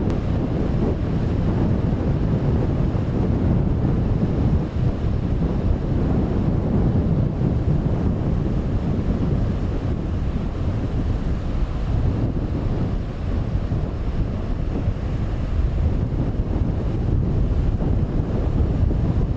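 Strong coastal wind buffeting the microphone in a steady low rumble, over the wash of rough sea.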